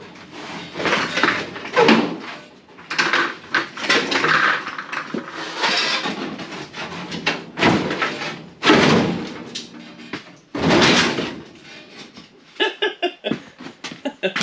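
Large sheet-steel trunk floor pan with attached wheel tubs scraping and banging against the car's body as it is forced into a tight-fitting opening: a string of loud, irregular metal scrapes and clanks.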